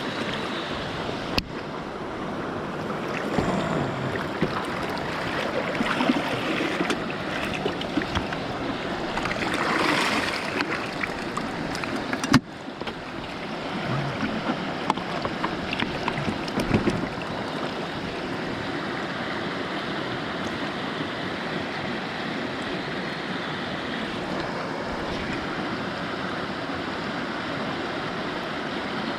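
River running high, still swollen after heavy rain: a steady rush of fast water, with a sharp click about a second in and another near the middle.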